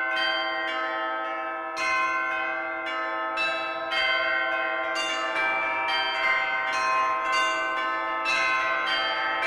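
Church bells ringing in a continuous peal, a new strike about every half second, each bell's tone ringing on under the next.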